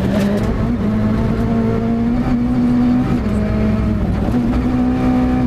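Ford Fiesta WRC's 1.6-litre turbocharged four-cylinder engine running hard at high, steady revs, heard from inside the cabin. The pitch holds level, with short dips about three seconds in and again just after four seconds.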